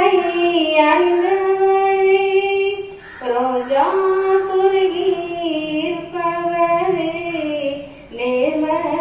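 A woman singing solo and unaccompanied into a microphone, in long held phrases that glide between notes. She pauses briefly for breath about three seconds in and again about eight seconds in.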